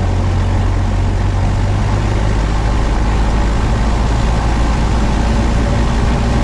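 Light single-engine airplane's piston engine held at 1,800 RPM with the brakes set for the pre-takeoff run-up, running steadily at a constant speed.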